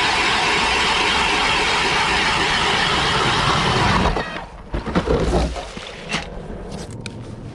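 Power ice auger drilling through lake ice with a steady grinding run that cuts off suddenly about four seconds in. A few knocks and thuds follow as the bit is worked in the hole.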